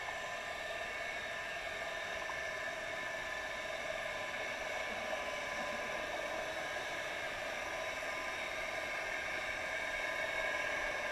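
Steady underwater hiss and whir heard through a GoPro Hero 3's sealed waterproof housing at about 15 feet down, even and unchanging with no distinct events.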